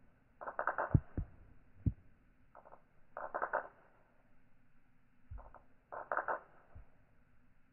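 Metal balls of a seven-ball Newton's cradle clacking together. Each collision gives a quick cluster of clicks, about every three seconds, with a few dull low thumps in between.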